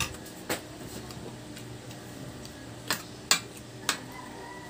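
Spoons and forks clinking against stainless steel divided plates while eating: about five sharp, separate clinks, three of them close together near the end.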